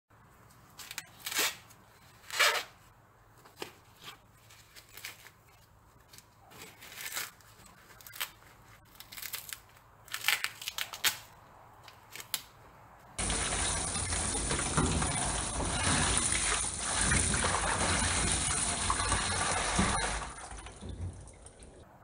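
Husks of a fresh ear of waxy corn torn and pulled off the cob in short rips and crackles. About thirteen seconds in, a steady rush of running water starts suddenly, the loudest sound here, and it fades out near the end.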